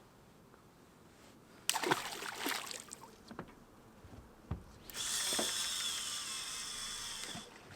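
A short rustling burst about two seconds in, then a fishing reel whirring for a couple of seconds as line pays off the spool, its pitch sliding down as the spool slows before it stops.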